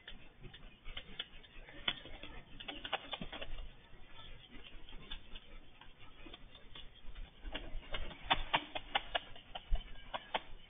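Irregular light clicks and taps, coming in two flurries, from saker falcons moving about inside a wire-mesh hacking cage.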